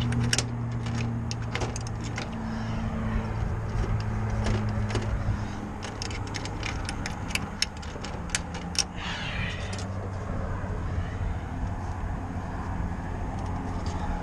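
Small metallic clicks and taps of hand tools working on electrical wiring, scattered irregularly, with a brief scraping rasp about nine seconds in, over a steady low mechanical hum.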